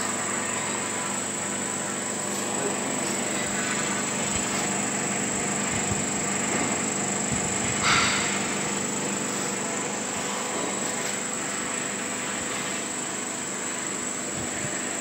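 Electric oil expeller machine running steadily: a motor hum with a high steady whine over it. A brief louder noise about eight seconds in.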